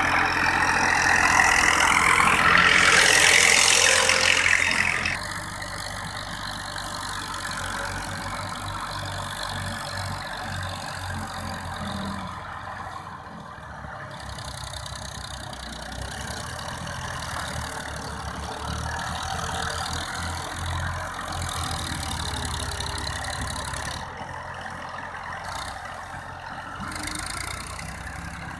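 Massey Ferguson 240 tractors' three-cylinder diesel engines running under load as they drag soil with rear blades. The sound is loud and close for the first few seconds, with a rushing noise at its peak. About five seconds in it drops abruptly to a steadier, more distant engine drone.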